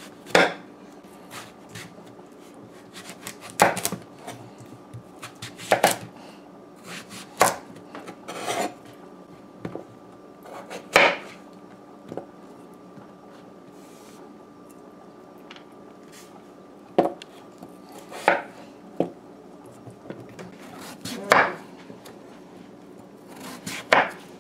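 Kitchen knife cutting through raw pumpkin and knocking down onto a wooden cutting board: about ten sharp, irregular strokes, one to several seconds apart.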